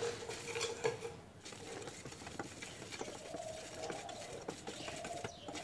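Wooden spatula stirring whole spices and dried red chillies around a steel kadhai as they dry-roast on low heat: faint, scratchy scraping and rattling of seeds with scattered light clicks.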